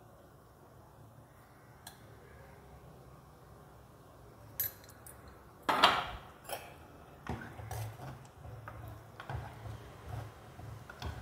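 Kitchen utensils clinking and knocking: a spoon and ladle against a black clay cooking pot and nearby dishes, in a scattered run of clinks that starts about four and a half seconds in, the loudest just before six seconds. A low steady hum runs underneath.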